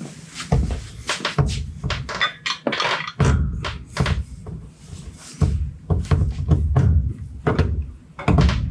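Irregular thunks and clunks while a heavy turbocharger, hung on straps from a shop engine hoist, is shifted into position over the engine bay.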